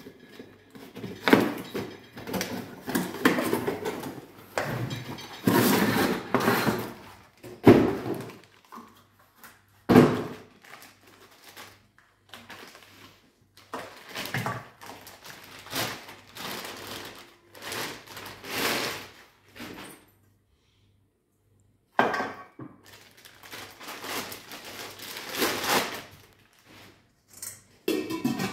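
Unboxing a stainless steel deep wok: rustling and tearing of cardboard and plastic wrapping, with several knocks and clinks of the steel pot and its lid being handled. The sound drops out for about two seconds roughly two-thirds of the way through.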